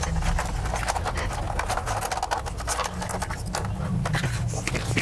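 Irregular clicks and knocks of plugs being handled and pushed into the sockets of a modular switchboard, with a steady low rumble underneath.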